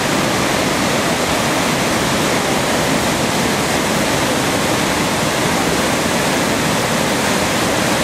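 White water of wide, low cascades tumbling over travertine rock ledges into a river, a steady, unbroken rush of falling and churning water.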